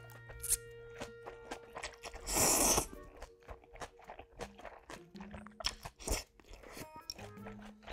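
A person slurping ramyun noodles, one loud slurp about two and a half seconds in, between stretches of wet chewing with many small smacks and clicks.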